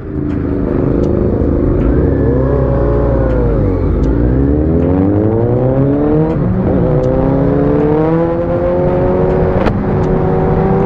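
Kawasaki inline-four motorcycle engine accelerating on the move. The revs rise, drop sharply at a gear change about four seconds in and again a couple of seconds later, then climb steadily again.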